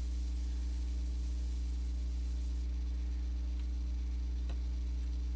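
Steady low hum with a faint hiss under it; the quiet ribbon tying makes no sound that stands out.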